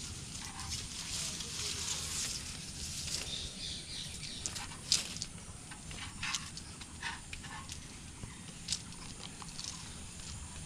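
Outdoor background with rustling and a scattered handful of sharp clicks and taps, the loudest about five seconds in, over a steady low rumble.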